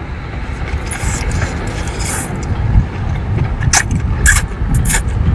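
Wet slurps as sauce-coated octopus tentacles are sucked into the mouth, several short sharp slurps in the second half, over a steady low rumble.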